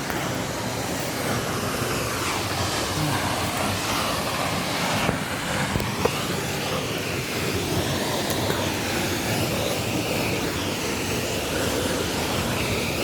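Steady rushing noise of a waterfall, its falling water making an even, unbroken roar.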